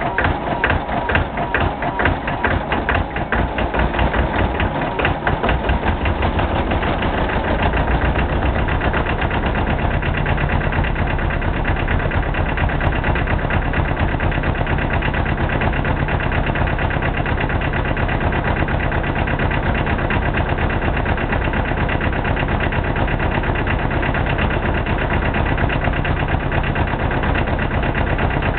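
McCormick Farmall tractor engine running, its separate firing beats distinct at first, then settling after about seven seconds into a steadier, deeper running.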